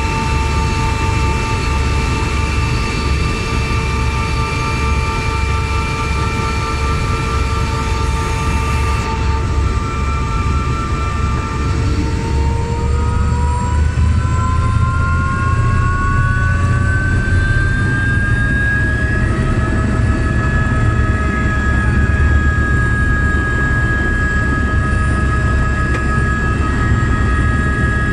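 Helicopter turbine engine running, heard from inside the cockpit: a loud low rumble under a steady whine. About twelve seconds in, the whine rises smoothly in pitch over several seconds and then holds at the higher pitch as the engine speeds up.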